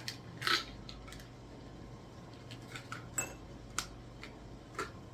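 Fish oil capsules and a plastic supplement bottle being handled while filling a pill organizer: a few sharp, scattered clicks and clinks.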